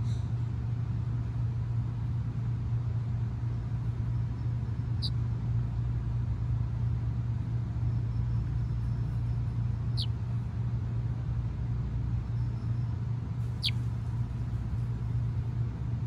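A steady low rumble or hum runs throughout, with three brief high chirps that fall in pitch, spaced about four to five seconds apart.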